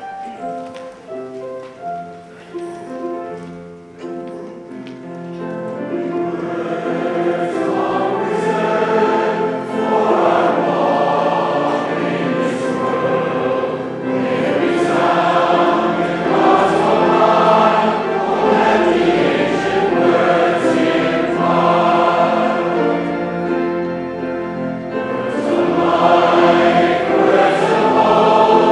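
Church choir singing with accompaniment. It starts softly with held notes and grows fuller and louder about five seconds in.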